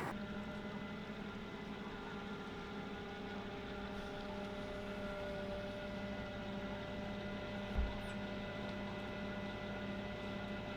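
Steady machine hum made of several unchanging tones, with a brief low thump about eight seconds in.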